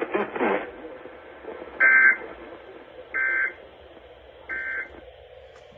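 Emergency Alert System end-of-message signal: three short, buzzy bursts of SAME digital data tones, about a second and a half apart, marking the end of the broadcast alert.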